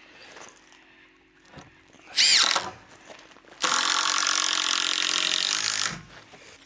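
Power drill running: a short spin-up with rising pitch about two seconds in, then a steady run of about two seconds.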